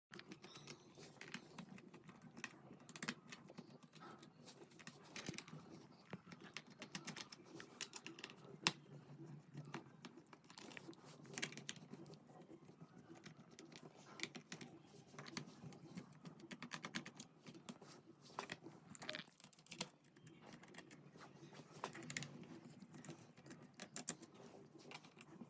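Faint, irregular small clicks and ticks of a screwdriver working the screws out of a laptop's plastic bottom panel, with light handling of the case.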